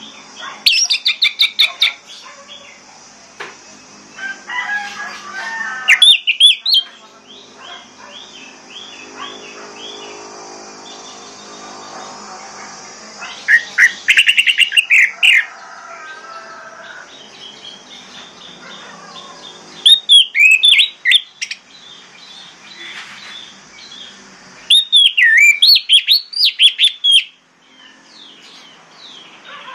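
Orange-headed thrush singing: loud phrases of rapid, high, sweeping notes in about five bursts of one to two seconds each, spaced several seconds apart, with quieter sound between them.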